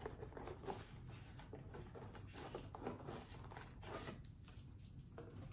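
Faint, irregular rustling and crinkling of paper and cardboard packaging handled by hand while a gift box is unpacked.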